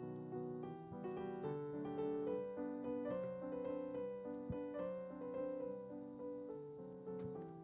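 Piano music: a continuous run of notes and chords.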